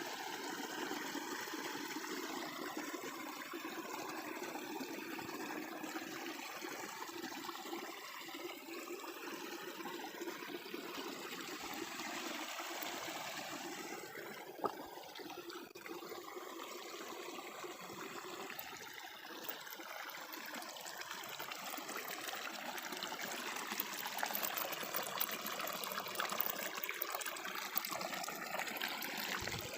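Small shallow stream babbling, with water trickling and gurgling over stones.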